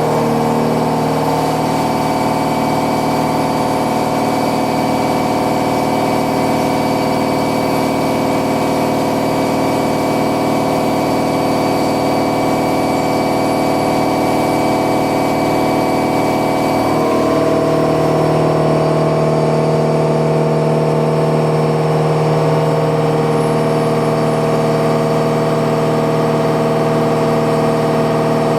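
Milling machine cutting metal with an indexable-insert milling cutter: a loud, steady hum of tones that changes pitch pattern about seventeen seconds in as the cut or spindle speed changes.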